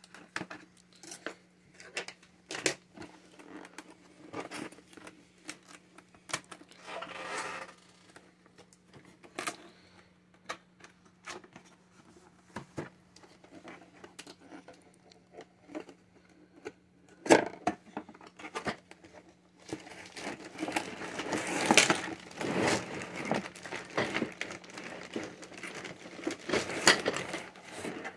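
A cardboard toy box being cut open with a knife and handled, with scattered clicks, scrapes and tearing of tape and cardboard. From about twenty seconds in comes a louder, continuous crinkling of plastic bags of parts being handled.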